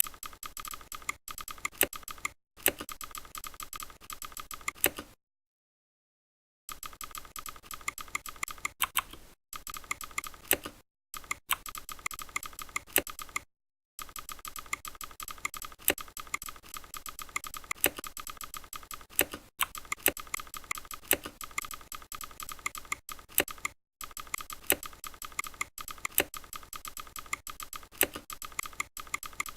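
Simulated Razer mechanical keyboard key clicks from a typing sound-effect program, played as keys are typed in quick runs with a few louder strokes. The runs are broken by several pauses of dead silence.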